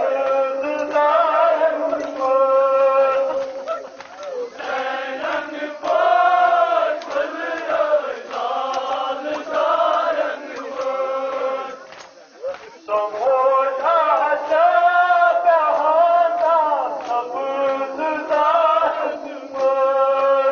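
Men's voices chanting a Kashmiri nohay, a Shia Muharram lament, with short breaks between phrases.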